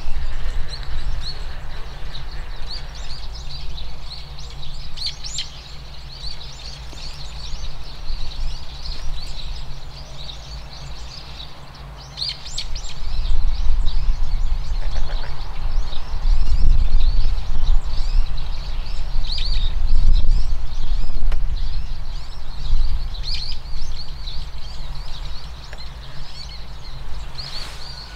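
Small birds chirping and twittering throughout, over a low rumble that swells through the middle stretch and eases off again.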